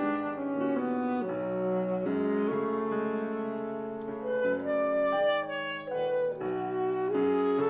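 Two alto saxophones playing held, overlapping melodic lines over grand piano accompaniment in classical chamber music. The notes change every second or so.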